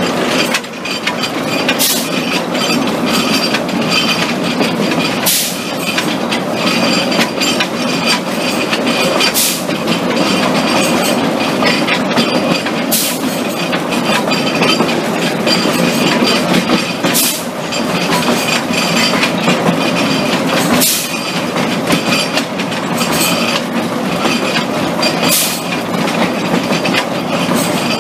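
Narrow-gauge steam train heard from inside its carriage: a steady rumble of wheels on the track, with a sharp click about every four seconds.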